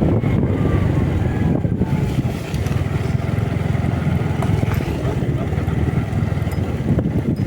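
Motorcycle being ridden: a steady low rumble of engine and road noise.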